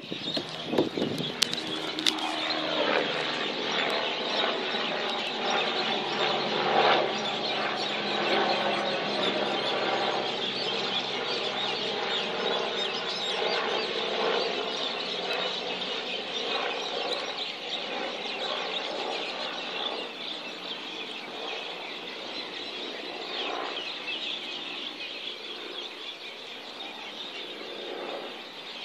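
Helicopter flying over with a steady engine and rotor sound. Its pitch drops about two seconds in as it passes, then the sound slowly fades as it flies away.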